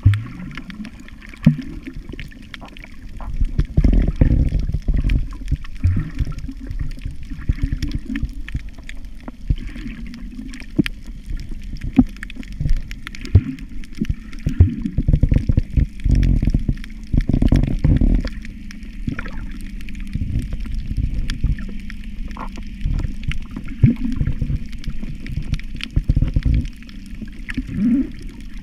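Muffled underwater water noise picked up by a submerged camera: irregular low surges of moving water with scattered sharp clicks.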